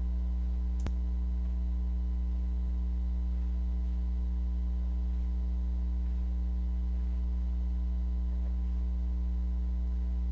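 Steady low electrical hum, a buzz with a strong bottom note and fainter overtones, with a single faint click about a second in.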